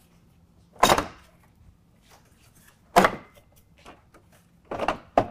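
Plastic retaining clips of a 2019 Ford F-150's front grille popping loose as the grille is pulled straight out: about four sharp snaps, one about a second in, one about three seconds in and two close together near the end.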